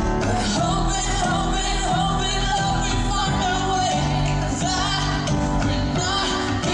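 Live pop song with a lead vocal held and wavering with vibrato over band accompaniment, heard from the audience at a concert.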